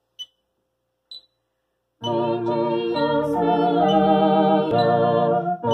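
A two-manual electronic organ starts playing about two seconds in, with sustained full chords that change every second or so and a slight vibrato waver. Before it come two short clicks.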